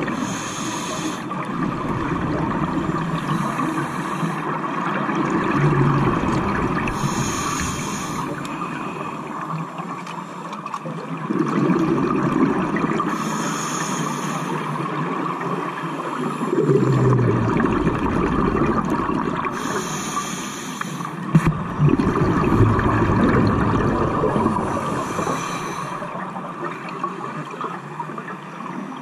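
Scuba regulator breathing underwater: a short hiss through the demand valve on each inhale, followed by a low rumble of exhaled bubbles, in about six slow breath cycles.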